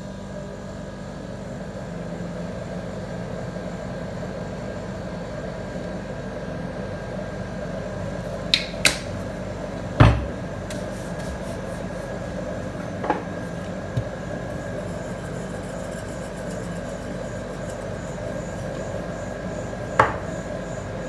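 Steady hum of a rolled-ice-cream machine's refrigerated frozen pan running, with a few short sharp knocks and clicks, two close together past the middle, the loudest just after them, and another near the end.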